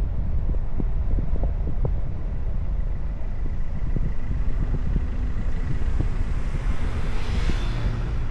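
Car driving on a winding road, with wind buffeting the microphone in a steady low rumble and scattered small knocks from the road. About seven seconds in a whoosh swells and fades.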